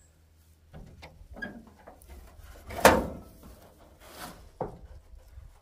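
A few knocks and clunks as the hood of a 1980s Chevy K30 truck is raised and handled. The loudest is a sharp clunk about three seconds in.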